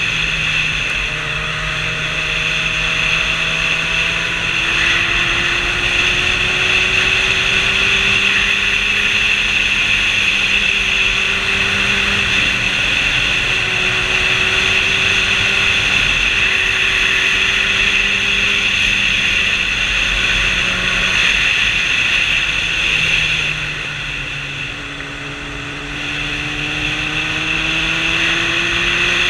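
Sport motorcycle riding at road speed: the engine runs steadily under a constant rush of wind noise over a helmet-mounted microphone. About three-quarters of the way through the engine eases off and the sound drops briefly, then it builds again.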